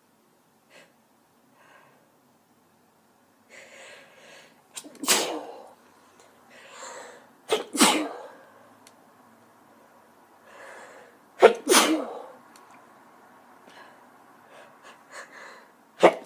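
A woman sneezing three times, each sneeze preceded by a short audible in-breath, with a fourth sneeze starting at the very end.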